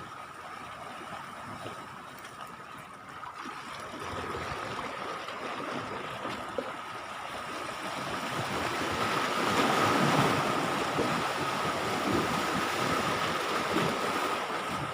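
Sea waves washing on the beach with wind noise, swelling to a louder wash about two-thirds of the way through, with a steady high tone running underneath.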